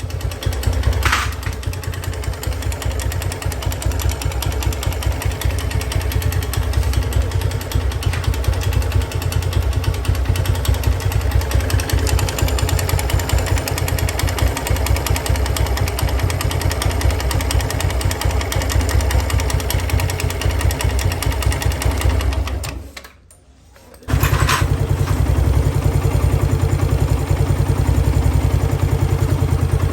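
Suzuki Gixxer 155 cc single-cylinder motorcycle engine idling with a fast, even low firing beat. It cuts out briefly about two-thirds of the way through, then runs again, with a sharp click just after it resumes.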